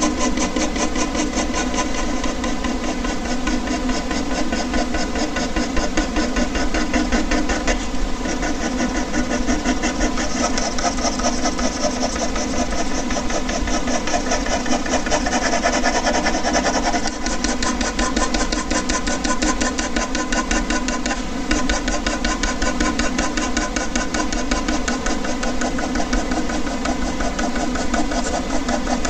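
Air conditioner running: a steady mechanical hum with several held tones and a fast, even flutter.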